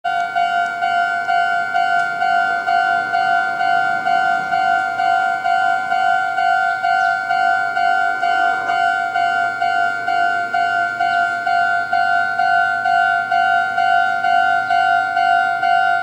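Japanese railway level-crossing alarm: the electronic warning bell from the crossing signal's loudspeaker dinging steadily, a little under two strokes a second, warning that a train is approaching.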